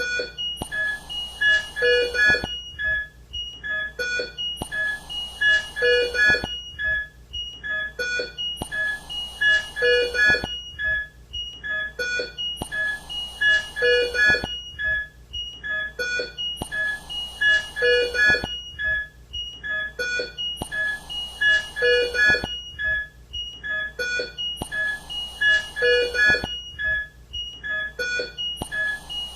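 ICU ambience: a mechanical ventilator cycling about every four seconds, each breath a brief rush of air, over patient-monitor beeps and repeating alarm tones at a few fixed pitches.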